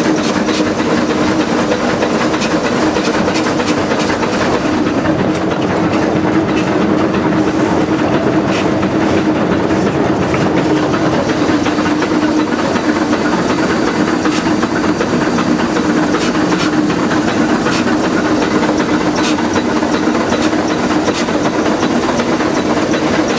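Westside Lumber No. 12, an oil-fired geared Shay steam locomotive, running and heard from inside its cab: a steady hiss of steam over a constant hum, with scattered clicks and clatter.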